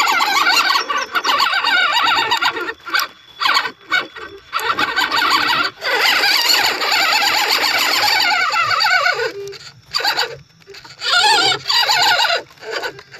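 High-pitched whine of a small RC crawler's electric motor and gears, coming in spurts that stop and start with the throttle, with a longer unbroken run in the middle.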